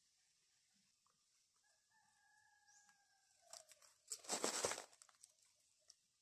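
A rooster crows once, faintly: one long held call that drops in pitch at its end, about two seconds in. About four seconds in comes the loudest sound, a brief loud rustle and crackle of leaves and twigs as a duhat (Java plum) tree branch is pulled and shaken.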